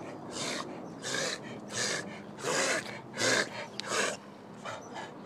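Dog reverse sneezing: a run of about six harsh, noisy forced breaths in through the nose, roughly two-thirds of a second apart, growing fainter near the end.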